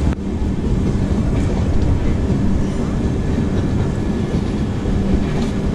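Passenger train running on the rails: a steady, loud rumble with a constant low hum.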